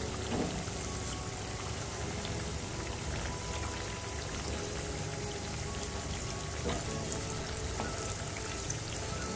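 Battered potato pakoras deep-frying in hot oil: a steady crackling sizzle, with a few soft knocks as a wooden spatula turns them.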